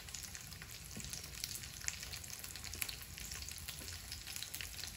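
Almond-crusted chicken thighs frying in oil in an electric skillet: a steady sizzle with frequent small crackles and pops.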